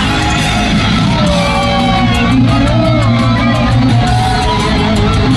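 Live thrash metal band playing loud, with heavy distorted electric guitars over bass and drums and a wavering melody line on top. The crowd is mixed in, as heard from among the audience in an arena.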